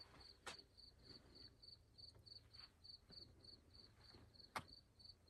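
Faint cricket chirping, a steady high pulse about four times a second, with a few sharp clicks; the loudest click comes near the end.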